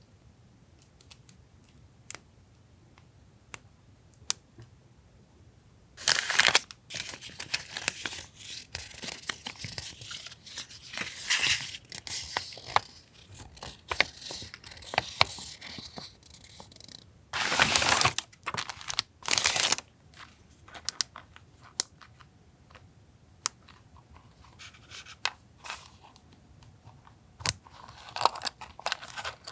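Paper and plastic stationery packaging being handled, crinkling and rustling in dense stretches, with light taps and clicks between them and two louder crinkling bursts just past the middle.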